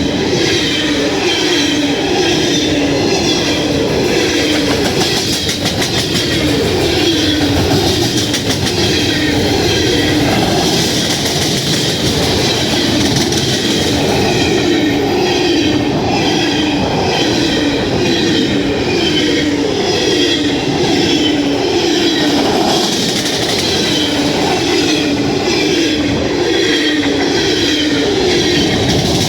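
CSX train rolling past at speed, its wheels clicking over the rail joints in a steady repeating rhythm.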